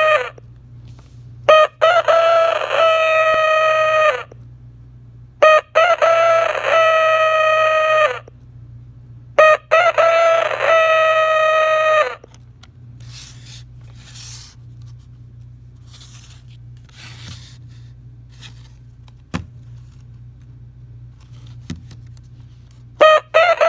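A 1991 Kellogg's Corn Flakes alarm clock sounding its rooster-crow alarm through its small speaker: three crows with short gaps between them. The crowing is cut off about halfway through when the mute button on top is pressed. After a quiet stretch with a couple of faint clicks, the crowing starts again near the end.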